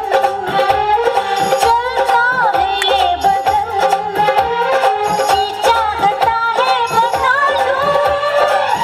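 Music: a wavering, gliding melody over a steady percussion beat and bass pulse.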